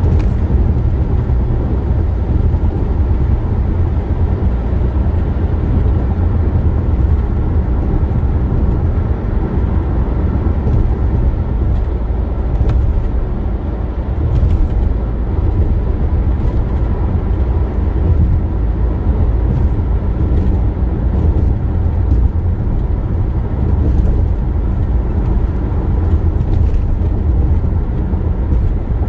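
Car cruising at highway speed: a steady low drone of tyre and road noise with engine hum, heard from inside the car, with faint light ticks now and then.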